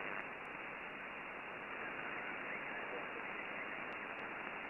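Steady hiss of band noise from a Flex-5000 software-defined radio receiving 20-metre single-sideband, heard through its narrow SSB filter between stations, with no signal on frequency.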